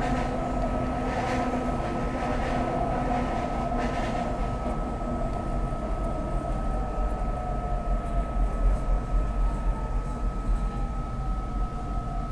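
SEPTA Market-Frankford Line elevated train running, heard from inside the car: a rumble with a steady high tone. From about halfway a whine falls slowly in pitch as the train slows into its station stop.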